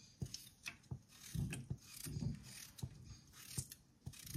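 Kitchen knife working through a vegetable by hand: a run of small irregular clicks and short scrapes, with a few soft low knocks.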